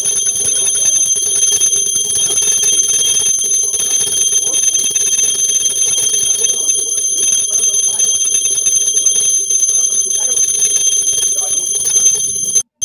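Brass puja hand bell rung without pause, a steady high ringing; it cuts out for a moment just before the end.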